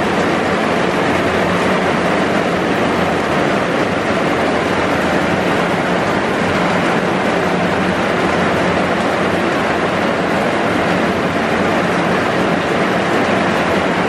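Heavy rain falling steadily, heard from inside a bus shelter, with no breaks or separate sounds.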